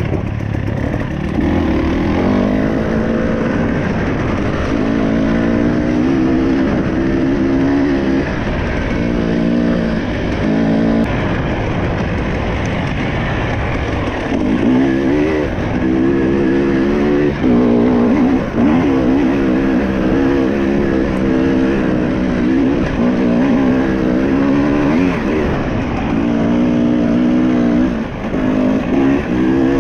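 Enduro motorcycle engine heard from on board, revving up and falling back again and again as the bike is ridden along a trail, its pitch climbing through each run with short drops between, over a steady low rumble.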